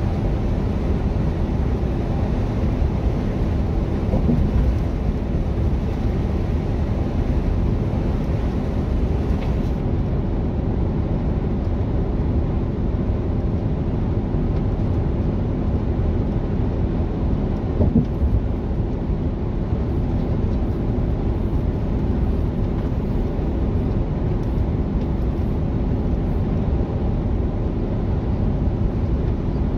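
Mercedes-Benz Actros semi-truck cruising on the motorway, heard inside the cab: a steady low drone of engine and tyre-on-road noise, with a couple of short bumps, the clearest about 18 seconds in.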